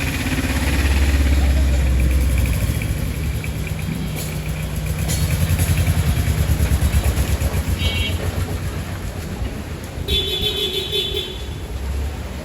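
Motor vehicle engines running with a low, pulsing rumble, and a vehicle horn honking: a short beep about eight seconds in and a longer honk about ten seconds in.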